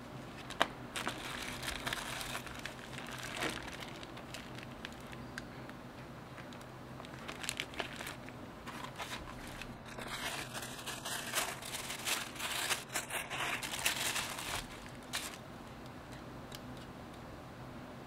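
Bubble wrap and paper packing crinkling and rustling as they are pulled back and handled, busiest about a second in and again from about ten to fifteen seconds.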